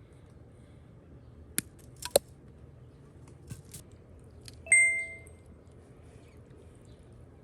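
Cooking utensils and metal cookware knocking: a few sharp clicks, then one bright metallic ping that rings briefly and fades.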